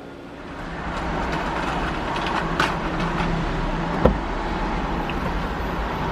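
Steady running noise of a car, rising about half a second in, with a sharp click about two and a half seconds in and a short thump about four seconds in.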